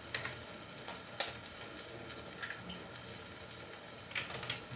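Light clicks and taps of eggs being handled and cracked over a glass bowl. The sharpest comes about a second in, with a few more near the end.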